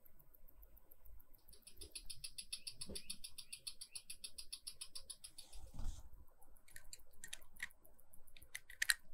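Longines Master Collection automatic watch movement ticking in a rapid, even rhythm, freshly serviced and running well with its balance amplitude back to about 300 degrees. Near the end, a few light, irregular clicks as the dial is handled onto the movement.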